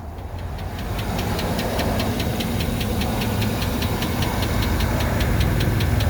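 The 6.2-litre V8 engine of a 2009 GMC Sierra 1500 Denali idling at operating temperature with a sharp, rapid, regular ticking over the engine hum, about seven ticks a second, getting louder over the first second. Oil pressure is good, so the tick is not from a lack of oil pressure.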